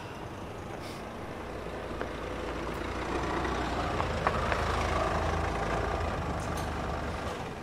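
A vehicle engine's low rumble that builds up over about five seconds and then eases off, with a few light clicks.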